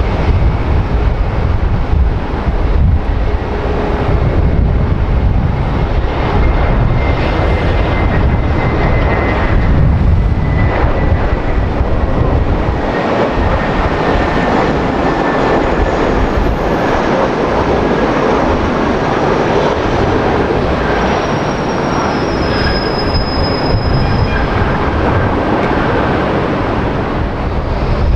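Jet airliner engines running loud and steady, a faint high whine sinking slightly in pitch over the noise.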